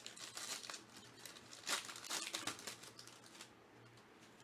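Foil wrapper of a trading-card pack crinkling and tearing as it is ripped open by hand, in crackling bursts that die away about three and a half seconds in.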